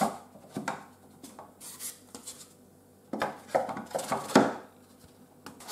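Light wooden knocks and taps, then a longer stretch of scraping and rubbing about three seconds in, as a foam-and-plywood tail-support piece is pushed into a snug slot in a plywood fuselage frame.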